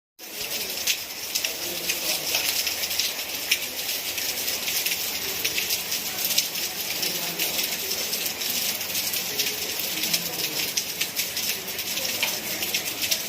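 Steady rain falling: a continuous high hiss dotted with many sharp ticks of individual drops striking a surface.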